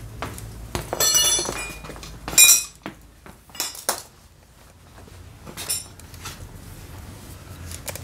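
Metal hand tools and brake parts clinking as they are handled: a ringing clink about a second in and a louder one a moment later, then a few lighter clicks and knocks.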